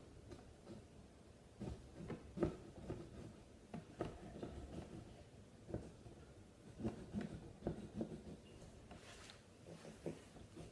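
Small pumpkin-carving saw working through the pumpkin's wall: faint, irregular scraping strokes with soft knocks.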